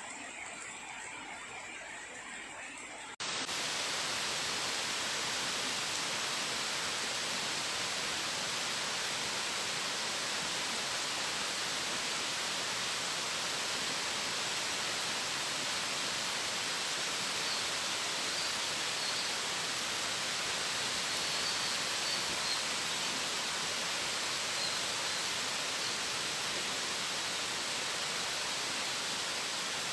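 Heavy pouring rain: a steady, dense hiss with no rises or falls. It cuts in suddenly about three seconds in, replacing a quieter background.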